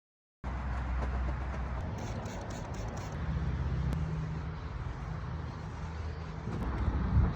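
Engine running steadily with a low hum, starting abruptly about half a second in.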